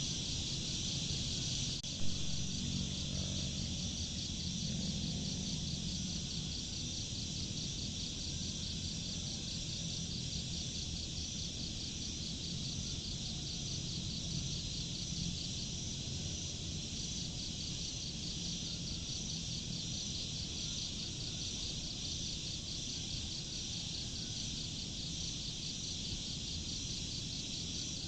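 Insects chirping in a steady high chorus, an even, rapid pulsing, over a low rumble, with a single sharp click about two seconds in.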